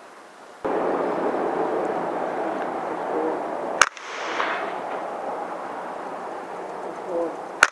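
Two sharp cracks of a PCP air rifle firing, about four seconds apart, the second near the end. Under them a steady rushing background noise starts suddenly under a second in.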